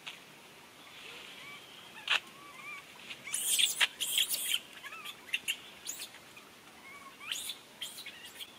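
Short high chirps and squeaky calls from small animals, scattered throughout. They are mixed with clicks and bursts of scratchy, rustling noise, most of it a few seconds in and again near the end.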